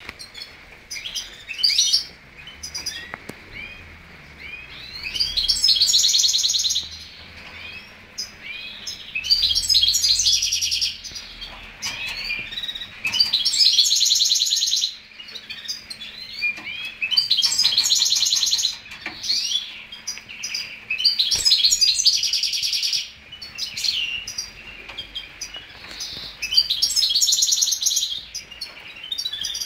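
Caged finch singing: running twitters and chirps, broken about every four seconds by a loud, fast trill lasting one to two seconds.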